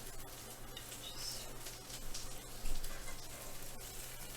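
Faint sizzling from a frying pan, with a few light kitchen clicks and a soft knock near the end.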